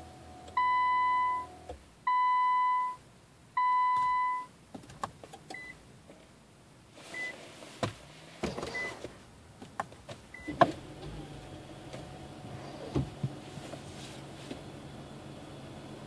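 Infiniti Q50 dashboard warning chime sounding three long, even beeps about a second and a half apart as the car is switched back on. A few light clicks follow, then a sharp click about ten and a half seconds in and a steady low running hum from then on.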